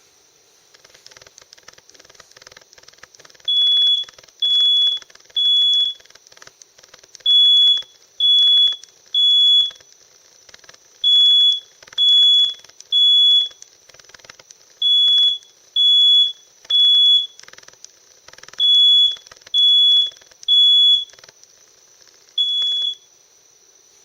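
Smoke alarm sounding during a push-button test: loud high-pitched beeps in groups of three, the temporal-three evacuation pattern. The beeping begins about three and a half seconds in, runs through five groups of three, and ends with a single beep near the end.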